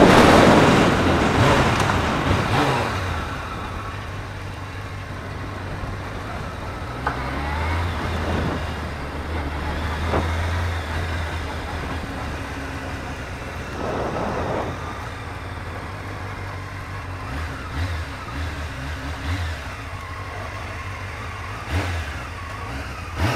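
Honda CBR600F3 inline-four engine with rushing wind as the motorcycle slows down; the noise fades over the first few seconds. The engine then runs steadily at low revs, with a few short blips, as the bike rolls slowly to a stop.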